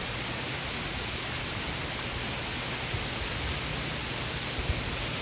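Rain falling steadily in a thunderstorm, an even hiss.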